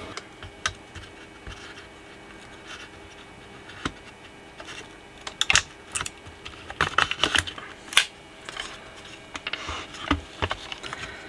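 Scattered light clicks, taps and scrapes of small parts and tools being handled on a workbench, with a few sharper knocks about halfway through.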